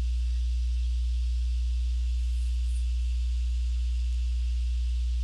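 Steady low electrical hum with a faint even hiss: the recording's background noise, with no other sound.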